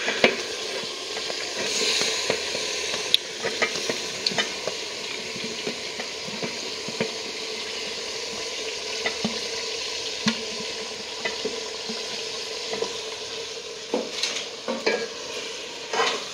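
Meat and potatoes frying and sizzling in a karahi, stirred with a spoon that clicks and scrapes against the pan. The sizzle is a steady hiss, and the spoon strikes come irregularly, busier near the end.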